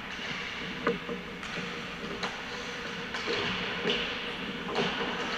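Ice hockey practice: sharp clacks of sticks striking pucks and pucks hitting the boards, about one a second, over a steady hiss of skates on the ice.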